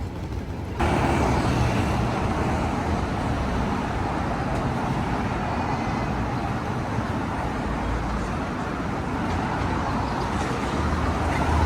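Steady city traffic noise, a continuous rumble of passing road vehicles, that comes in abruptly about a second in.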